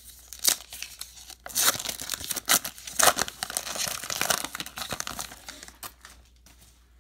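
A Topps Gypsy Queen baseball card pack's wrapper being torn open by hand and crinkled, a run of sharp rips and crackles that is densest in the middle and tapers off near the end.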